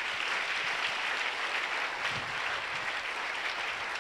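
A congregation clapping: many hands applauding steadily.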